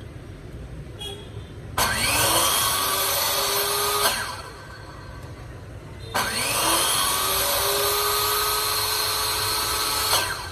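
Makita LC0700F dry-cut metal saw with a 180 mm carbide-tipped blade, run twice with no load: first for about two seconds, then for about four. Each time the motor whine rises quickly to speed and holds steady, then cuts off abruptly as the electric brake stops the blade on trigger release.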